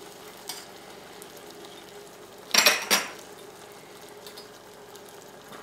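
A spoon knocks twice against the rim of a stainless steel saucepan, about halfway through, over the faint steady bubbling of hot caramel with butter just stirred in.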